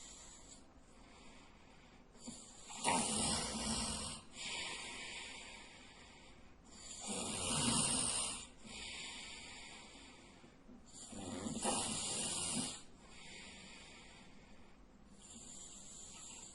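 A man snoring in his sleep: three loud snores about four seconds apart, each followed by a softer, hissing breath.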